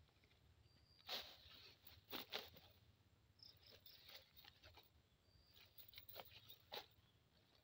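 Scattered soft rustles and crackles of grass and a nylon cast net as fish caught in it are moved about, a few separate rustles, with faint high insect chirps between them.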